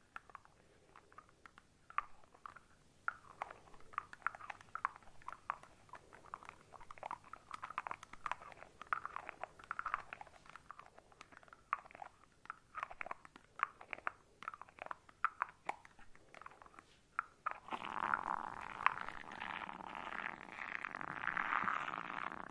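Shaving cream foam squished and worked close to the microphone: irregular wet crackles and squelches that turn into a denser, steadier squishing about three-quarters of the way through.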